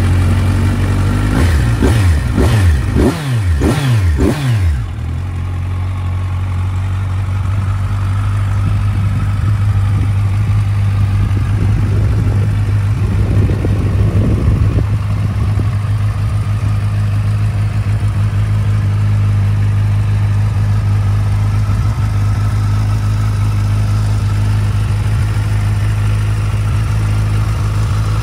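Kawasaki Ninja 1000's inline-four engine through an aftermarket Trickster slip-on muffler, blipped quickly five or six times in the first few seconds. It then settles into a steady idle.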